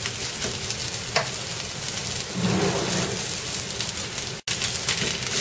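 Sabudana paratha sizzling and crackling in oil on a hot tawa griddle. The sound cuts out for an instant about four and a half seconds in.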